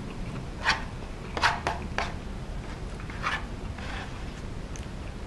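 Eating sounds: a wooden spoon scraping and knocking in a plastic takeout bowl of soup curry, in several short scrapes about a second apart.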